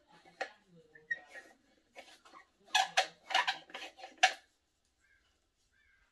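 A metal gas-mask filter canister is being screwed onto the threaded port of a GM38 gas mask. It makes a series of scraping, clicking knocks that stop about four and a half seconds in.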